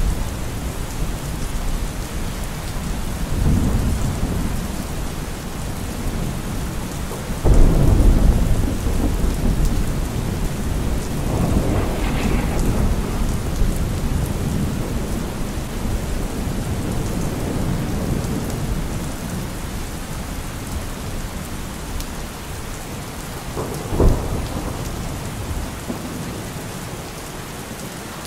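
Steady rain with rolling thunder. A low rumble swells a few seconds in, then a sudden louder clap about a quarter of the way through rumbles on for several seconds, and a short sharp crack of thunder comes near the end.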